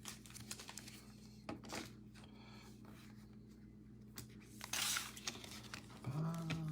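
Trading cards and their pack wrappers being handled: soft rustling and scattered clicks, with a louder crinkly rustle about five seconds in.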